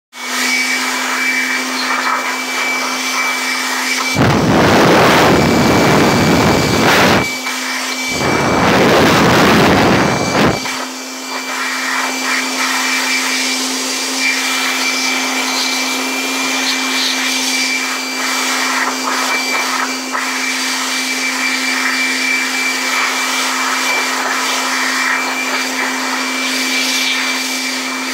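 Air blower running with a steady hum and a high whine over a rush of air, with two louder blasts of air of about three seconds each, starting about four and eight seconds in.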